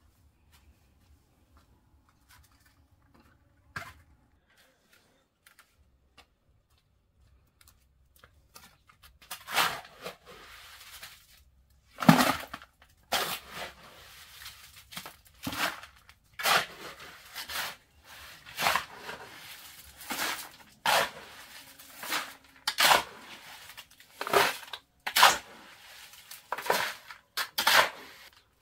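Rhythmic scraping strokes of a shovel working sand and gravel, about one a second, beginning about ten seconds in after a near-quiet stretch with a few faint clicks.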